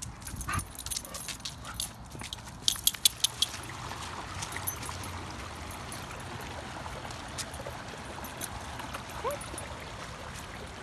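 Light metallic jingling and clicking from a puppy's collar and leash hardware as she moves about, with a quick run of louder clicks about three seconds in. After that there is a low steady outdoor background.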